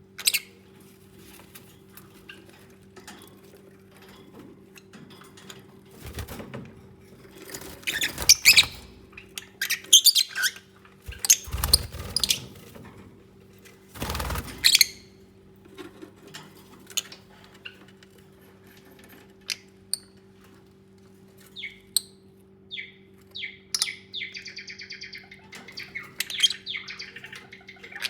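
Lovebirds moving about with loud bursts of fluttering and rustling through the middle, then short high chirps that build into rapid chattering near the end. A steady low hum runs underneath.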